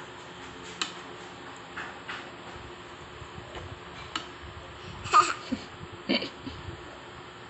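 A toddler's metal spoon clinks lightly against the soup bowl a few times. Then come two short, loud, high-pitched bursts of the toddler's voice, laughing squeals about five and six seconds in.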